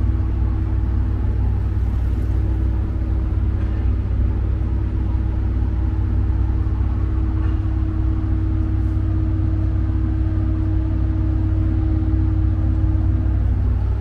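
Steady low rumble with a constant mid-pitched hum from running vending machines, the hum dropping away near the end.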